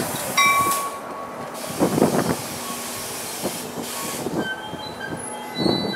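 NJ Transit commuter coaches rolling slowly past at a station, wheels clattering over rail joints twice, about 2 s in and near the end, with thin high squeals at several pitches from the wheels and brakes.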